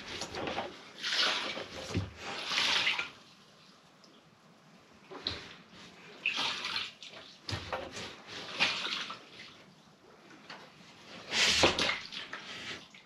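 Fuel left in a Ford Mondeo ST220's plastic fuel tank sloshing about as the tank is tilted and turned by hand. It comes in several separate surges of up to a second each, with quieter gaps between them.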